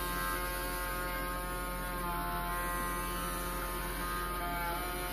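Steady electric hum with a buzzy whine from a small homemade motor-driven generator running on the bench.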